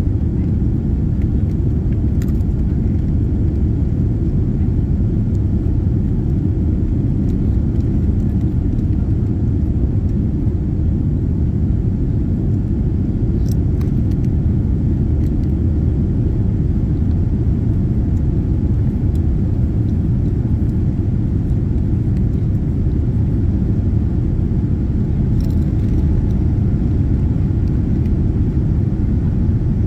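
Steady low rumble of engine and airflow noise inside the cabin of a Boeing 787-9 Dreamliner climbing out after takeoff, with a few faint clicks.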